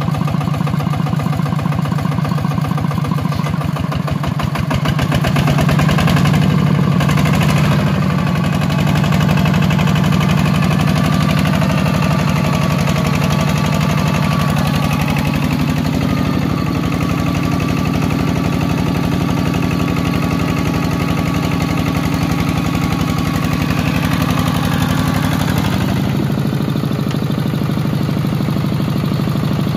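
Single-cylinder diesel engine of a two-wheel walking tractor running under load with a rapid, even firing beat. It revs higher for a few seconds about five seconds in as it pulls a trailer of sawn timber through mud.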